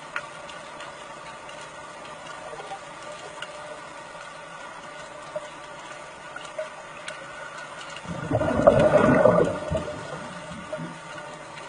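Water running steadily in a sea cave, with a louder rush of water about eight seconds in that lasts about two seconds.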